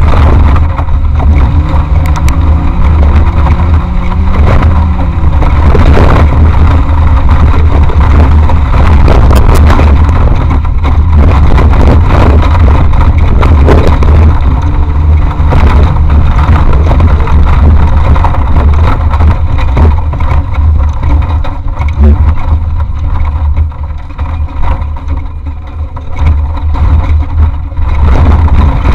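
An off-road race vehicle's engine running hard under heavy rumble and buffeting that overload the action camera's microphone. Its pitch rises and falls in the first few seconds, and sharp knocks and jolts come throughout. It eases off somewhat for a few seconds near the end.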